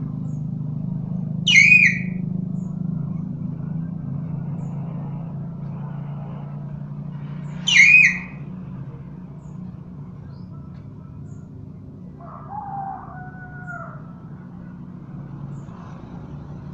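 Common hill myna giving two short, loud, shrill calls about six seconds apart, then a softer, lower call, over a steady low hum.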